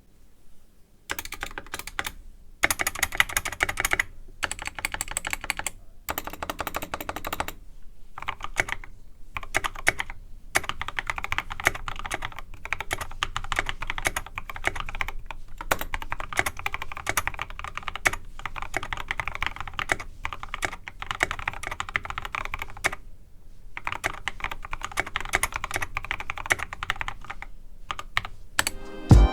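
Typing in runs of quick keystrokes on a GK64x mechanical keyboard with lubed and filmed Novelkey x Kailh Cream linear switches and its stock stabilizers, with short pauses between runs.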